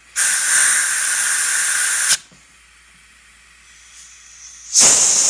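Compressed-air blow gun blasting air through the jets and passages of a small Tecumseh carburetor to clear out carb cleaner and debris: a loud hissing rush of about two seconds, a pause, then a second blast starting near the end.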